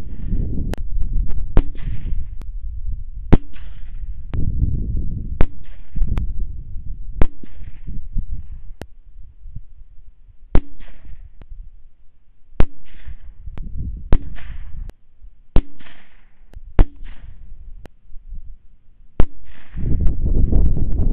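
Rapid series of rifle shots, about one every second or two, fired at rats through a thermal scope. Each crack is followed by a short hiss, with low rumbling noise between the shots.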